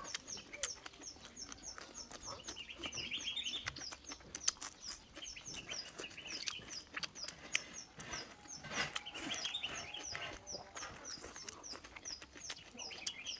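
Small birds chirping: a short high chirp repeating about four times a second, with bursts of twittering every few seconds. Close clicks and smacks of chewing run underneath.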